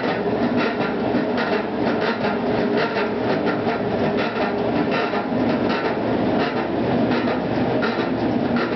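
Maytag Atlantis top-load washer running with a steady churning rumble and a repeating clatter of about three to four knocks a second. This is the unexplained noise that a replaced gearbox did not cure.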